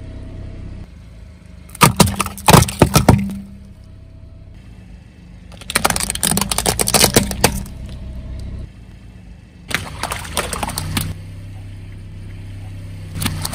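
A car tyre slowly rolling over objects and crushing them: repeated bursts of cracking and crunching, the longest about six seconds in as plastic toy number cylinders break under the wheel. The car's engine hums low underneath.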